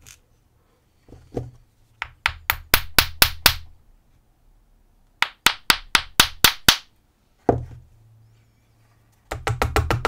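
Quick runs of sharp taps: the back of a screwdriver handle rapping the brass core of an IFAM Huno 80 padlock to knock the pins out of their chambers. There are three runs of about seven taps, the last one faster, with a single tap before the first run and another between the second and third.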